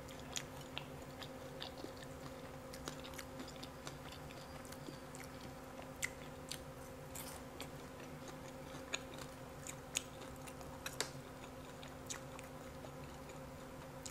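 Close-up chewing and mouth sounds of someone eating deep-fried catfish, with scattered small sharp clicks and crunches. A steady low hum sits underneath.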